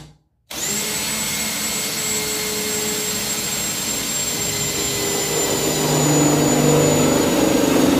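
Cordless drill running as it drills into the sheet-metal bed side of a VW single-cab pickup, with a steady high whine. It cuts out at the very start and starts again about half a second in. It grows louder and lower-toned from about six seconds in as the bit bites.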